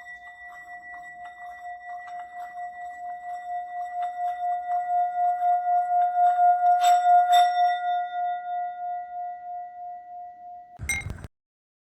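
Small hammered Tibetan singing bowl, about 7.6 cm across, being rimmed with a mallet so that it sings a steady ringing tone that pulses several times a second. The tone swells to its loudest about two-thirds of the way through, with two light clicks of the mallet, then fades, and a short rattling knock near the end cuts it off.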